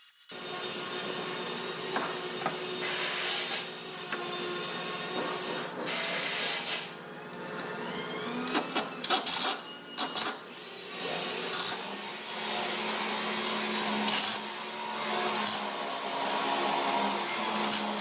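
An electric power tool's motor runs with a steady whir, broken by several brief dips and knocks about halfway through.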